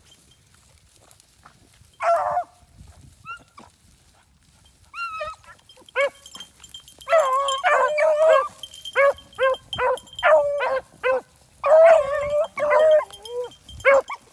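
Hunting beagles baying as they run a rabbit's trail: one bark about two seconds in, a few faint yips, then from about six seconds a fast, steady run of short barks.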